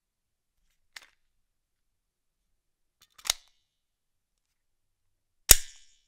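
Handling noises of a Smith & Wesson M&P9 M2.0 pistol: three sharp mechanical clicks, each louder than the last. The last comes about five and a half seconds in and has a brief ring after it.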